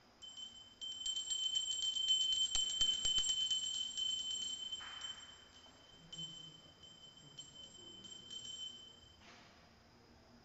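A small hand bell rung rapidly for about four seconds, then in a few slower shakes, its high ringing tone carrying on between strokes. This is the bell rung during a Hindu aarti.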